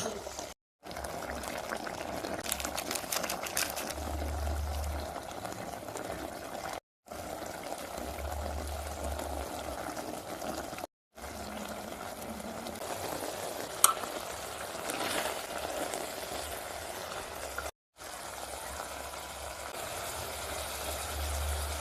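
Chicken cooking in a pan, bubbling and sizzling steadily, with a run of clicks a few seconds in and one sharp click about two-thirds of the way through. The sound drops out briefly four times.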